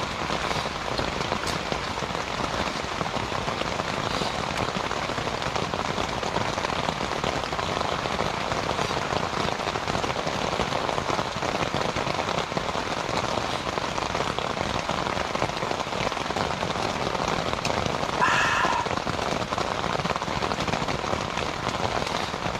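Steady rain falling on a tent, heard from inside it as an even hiss. A brief pitched sound stands out about eighteen seconds in.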